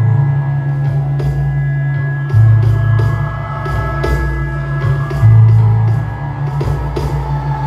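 Live band playing: a saxophone holding long notes over a deep bass line that changes note every two to three seconds, with drums keeping a steady beat.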